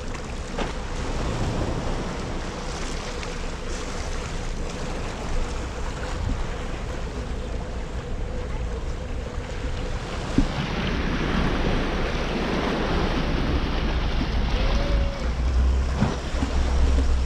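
Small sea waves washing and lapping around rocks at the water's edge, with wind buffeting the microphone, stronger near the end. A sharp knock comes about ten seconds in.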